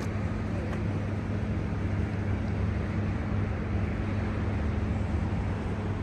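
Steady low rumble with a constant hum, and wind on the microphone.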